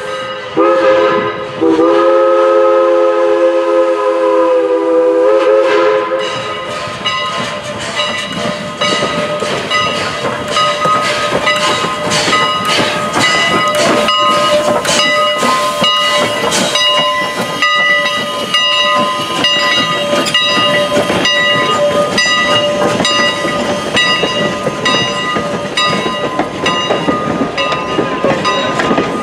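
Steam locomotive's chime whistle blowing, broken twice near the start, then held in one long blast until about six seconds in. After that a steam train passes close by: wheels clicking steadily over the rail joints, with a grade-crossing bell ringing along with them.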